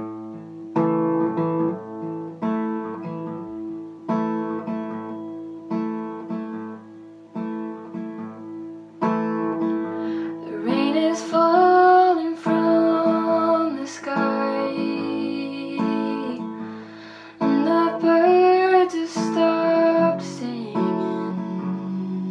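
Acoustic guitar strumming a slow chord pattern as a song intro, joined about halfway through by a young woman singing.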